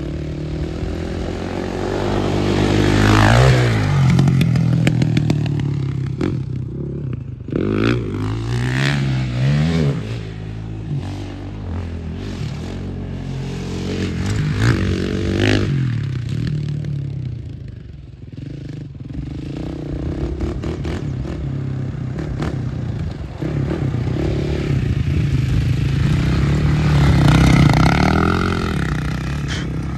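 KTM 450 sport ATV's single-cylinder four-stroke engine being ridden hard on a dirt track, its pitch rising and falling several times as the throttle is opened and closed.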